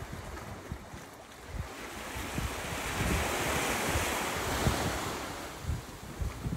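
Surf washing against a rocky shore, one wave's rush swelling about halfway through and then fading, with wind buffeting the microphone.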